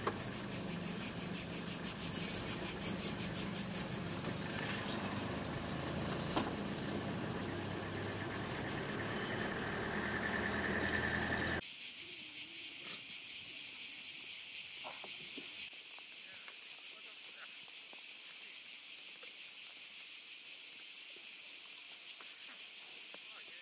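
Steady, high-pitched chorus of insects chirring. For the first half it is mixed with the low rumble of a car driving, which cuts off abruptly about halfway through, leaving the insects alone.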